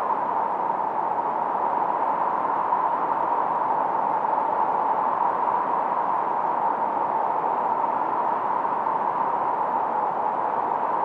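1972 Minimoog synthesizer's noise, run through a Roland RE-501 Chorus Echo, making a steady mid-pitched hiss with the highs and lows rolled off. There is no tone, rhythm or change in it.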